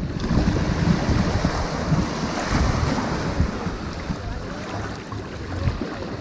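Ocean surf washing onto a sandy beach, a steady wash of breaking water with a low rumble, swelling and easing slightly, with wind buffeting the microphone.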